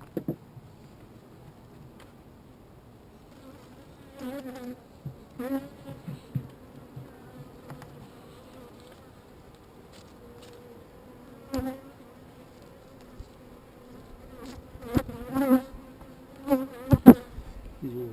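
Honeybees buzzing in a steady hum around an opened hive, with bees flying close past several times in louder, wavering swells. A sharp knock near the end is the loudest sound.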